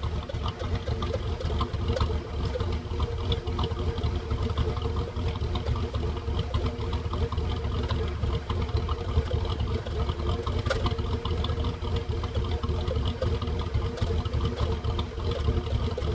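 2010 Ford F-150's 5.4-litre V8 idling roughly through its stock exhaust, the beat uneven and wavering. The rough idle is caused by a canister purge valve that is not working properly.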